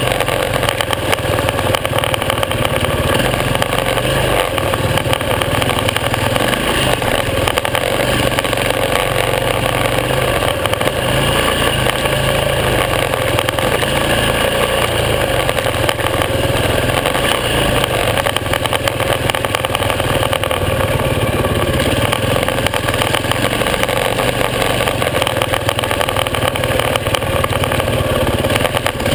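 Supermoto motorcycle engine running steadily as the bike is ridden, the note holding fairly even throughout.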